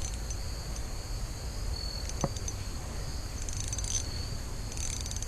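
Insects trilling in high steady tones that come and go, over a constant low rumble of wind and handling noise, with one faint click a little past two seconds.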